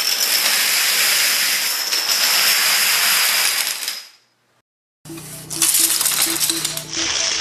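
Hundreds of small dominoes toppling in a cascade: a dense, continuous clatter for about four seconds that dies away. After a brief silence, a woven stick bomb of wooden craft sticks springs apart with a scattering clatter, over music.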